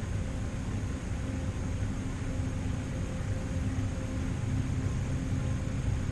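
HVAC system running steadily: a constant low hum with a faint steady tone over the rush of air.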